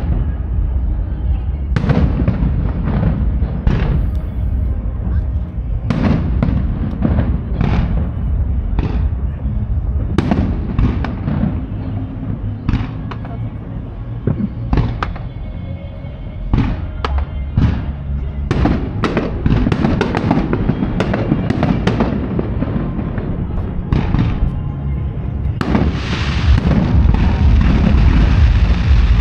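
Aerial firework shells bursting in irregular succession, a sharp boom every second or so. Near the end the bursts come thick and fast and the sound grows denser and louder.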